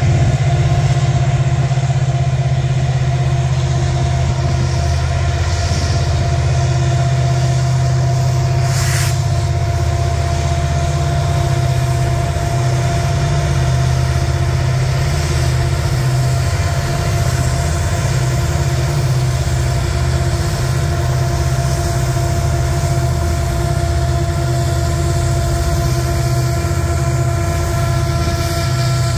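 A freight train rolling past with Montana Rail Link mid-train helper locomotives, EMD SD70ACe diesels, working under load. Their engines give a loud, steady, deep drone with a hum above it, mixed with the rolling of the hopper cars on the rails.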